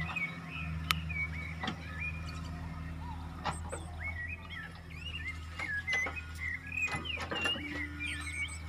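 Heavy diesel engine, likely the excavator's, running steadily at a low pitch, with many short high chirps and squeaks and a few sharp clicks over it.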